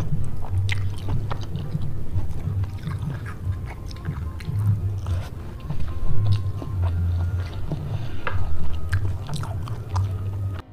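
Close-miked chewing and biting of a mouthful of spicy stir-fried squid and rice, with scattered small clicks, over soft background music.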